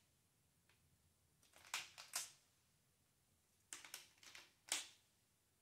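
A few quick clicks and clacks in small clusters, about two seconds in and again near the end: alligator clamps and charging leads being handled at the battery.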